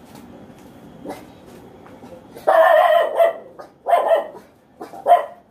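A dog barking: a few loud barks in the second half, the first the longest.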